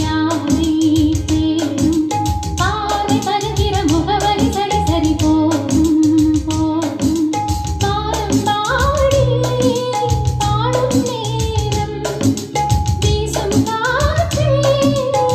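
A song plays with a singing voice over a strong bass line and a steady beat.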